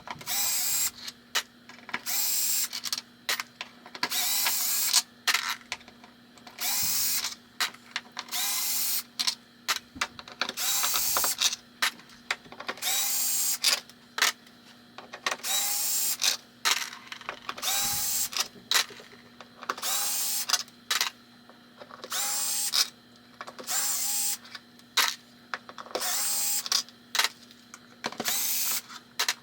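Cordless drill-driver running in short repeated bursts, about one a second, each starting with a brief rising whine, as screws are driven on a wooden pinball playfield.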